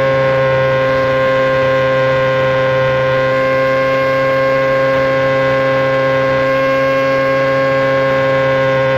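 Sport bike engine held at high, steady revs, a sustained even drone whose pitch eases very slightly down over several seconds.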